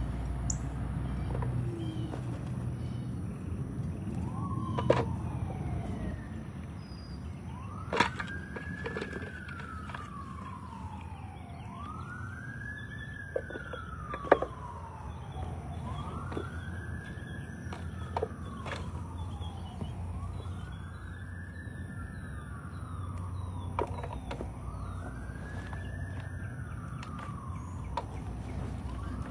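Emergency vehicle siren wailing, each cycle rising and then falling slowly, repeating about every four seconds. It starts faintly about four seconds in and grows more distinct. A few sharp knocks sound now and then over a low steady rumble.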